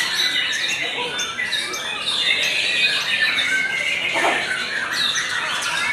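Caged white-rumped shamas (murai batu) singing all at once, a dense unbroken tangle of overlapping whistles, chirps and trills.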